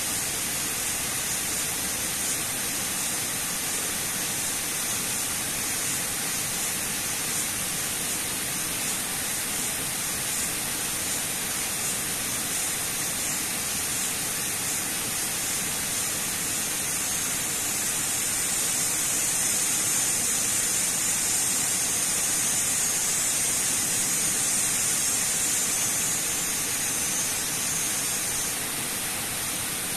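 Steady rush of heavy water pouring down a concrete dam spillway and churning into the pool at its foot. It grows a little louder and brighter from about the middle until near the end.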